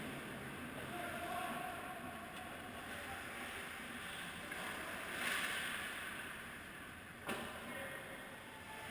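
Ice hockey play: skates carving and scraping on the ice, with a louder stretch of scraping about five seconds in and one sharp knock of a stick or puck a little after seven seconds.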